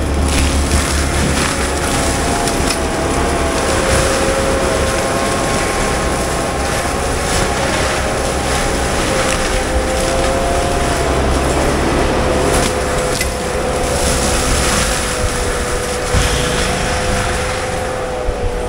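Compact track loader with a forestry mulcher head running steadily, a held whine that wavers slightly in pitch over the low diesel rumble, with scattered cracks and snaps as the mulcher chews into brush.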